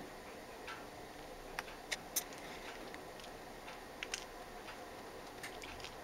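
A few faint, sharp clicks and ticks, scattered and irregular, over a quiet background. The loudest comes about two seconds in.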